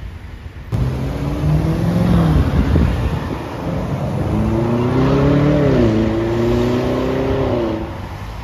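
A performance car's engine accelerating hard, starting abruptly under a second in. The pitch climbs and drops back at each upshift.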